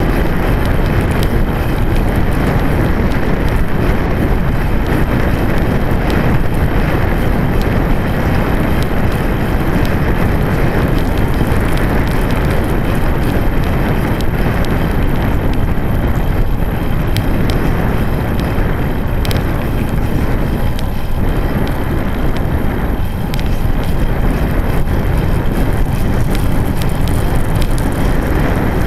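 Steady wind rush on a bike-mounted camera's microphone as a road bike rolls along, mixed with the rumble of its tyres on rough asphalt.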